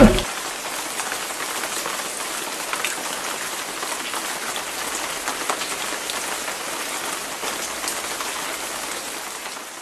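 Steady rain-like hiss with many small scattered ticks, like rain pattering on a surface, fading out near the end.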